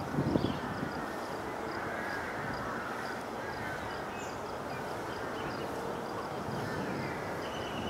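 Daytime outdoor bird ambience: a louder harsh call fades out about half a second in, then faint chirping bird calls over a steady background hiss, with a quick regular high ticking.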